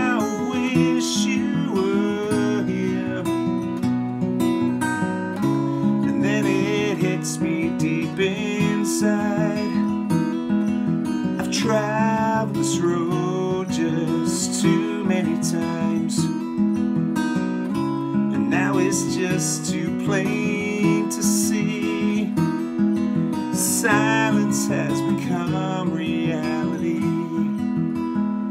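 A man singing a slow song to his own strummed acoustic guitar, his held notes wavering in pitch.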